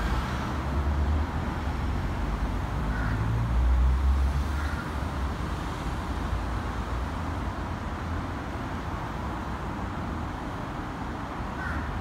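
Steady road traffic noise from motor vehicles passing on a busy road, with low engine rumbles swelling about a second in and again around four seconds in.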